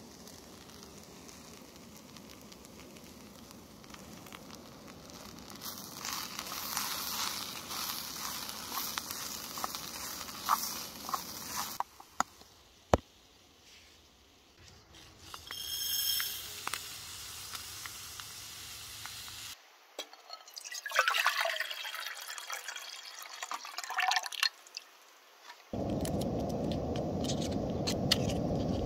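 Camp cooking: a metal spoon scraping and clinking in a lightweight aluminium cooking pot, in several bursts, with a brief ringing clink partway through. Near the end a steady hiss sets in abruptly, fitting a backpacking canister gas stove burning under a pot of water.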